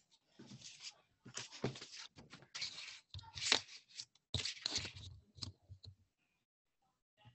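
Irregular rustling and scraping handling noise close to the microphone, as of things being moved or handled. It stops about a second and a half before the end.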